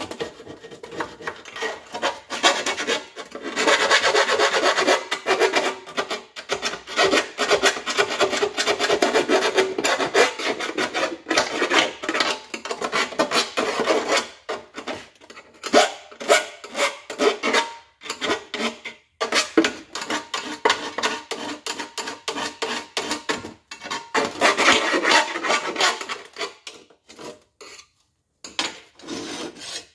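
A hand tool scraping and filing in quick strokes along the overlapping seam of a plated steel Moroso oil pan, cleaning plating and debris out of it ahead of welding. The work comes in spells with short pauses and stops near the end.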